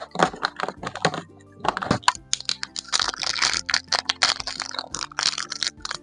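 Hands handling and opening toy packaging: quick clicks and taps on plastic, then about two seconds in a dense stretch of crinkling wrapper that lasts until near the end. Soft background music plays underneath.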